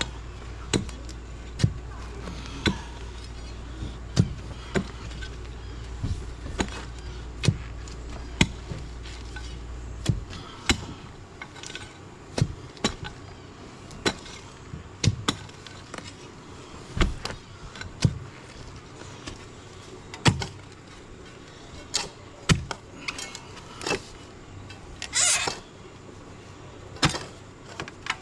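A pointed digging tool striking hard, rocky ground over and over, roughly one blow a second, to break up the soil for a trench. A low steady hum stops about ten seconds in.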